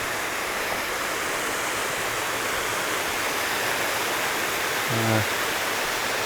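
Waterfall running steadily, a continuous even rush of falling water. About five seconds in, a brief low hum like a man's voice.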